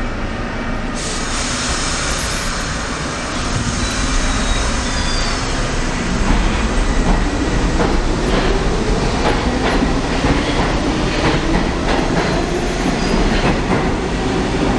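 R32 subway train running loud and picking up speed, its motor whine rising slowly in pitch, with repeated wheel clicks over rail joints and brief high wheel squeals.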